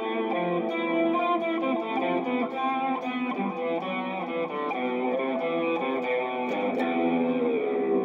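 Electric guitar played through an Eagle P412 speaker cabinet: a line of single notes and held notes, with one note sliding down in pitch near the end.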